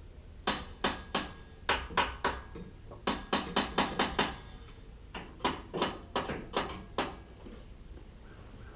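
A series of sharp metallic taps, about eighteen in bunches, some in quick runs of about five a second, from work on a truck that won't start.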